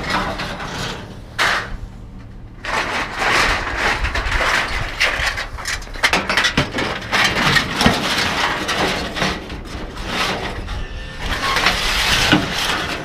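Scrap being handled and loaded: irregular clattering, scraping and knocks, with a brief lull about two seconds in, over a faint steady low hum.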